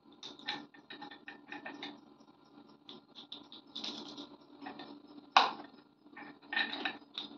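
Wooden Montessori sound cylinders being shaken by hand, rattling in short bursts as they are compared by ear. There is one sharp wooden knock about five and a half seconds in.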